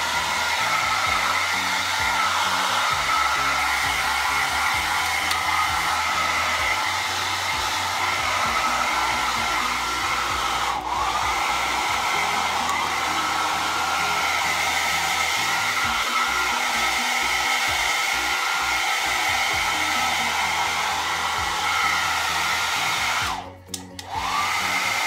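Small handheld hair dryer blowing steadily on a kitten's fur. It dips briefly about halfway through and cuts out for a moment near the end before running back up.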